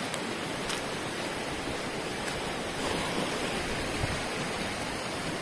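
Fast, turbulent stream rushing over rocks: a steady, even rush of water.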